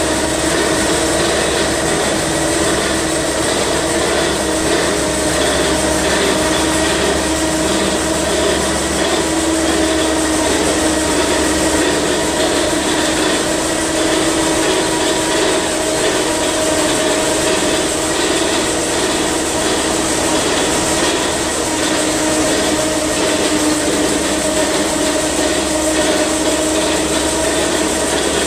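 Twin-cylinder Gardner petrol engine running steadily while driving an air compressor, building up air pressure for a lighthouse fog horn. A constant mechanical hum with a steady whine over it, unchanging throughout.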